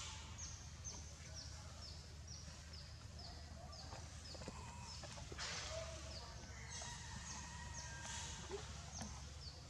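An animal calling in a steady series of short, high chirps that each fall in pitch, about two a second, over a constant low hum.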